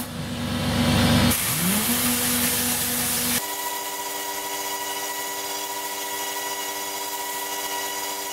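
Tornador Black air-powered cleaning gun blasting compressed air mixed with tap water into car carpet: a hissing rush that starts up again about a second in with a whine rising in pitch, then about three seconds in gives way to a steadier, humming tone.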